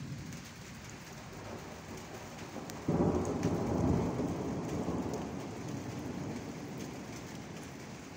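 Steady rain falling, with thunder breaking suddenly about three seconds in, then rumbling and slowly fading over the next few seconds.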